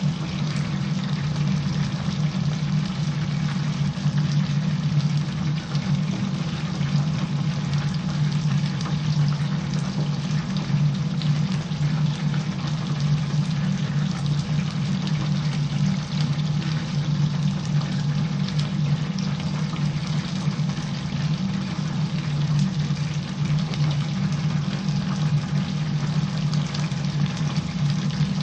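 Battered chicken pieces deep-frying in a commercial fryer, the oil bubbling and crackling without a break, over a steady low machine hum.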